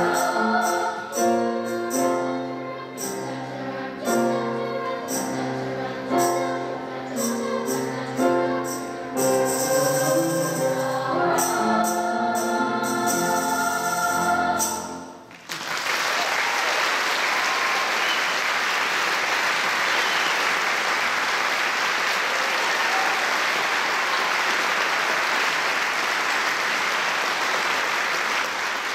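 Children's choir singing the last bars of a song, which ends abruptly about halfway through, followed by steady audience applause for the rest.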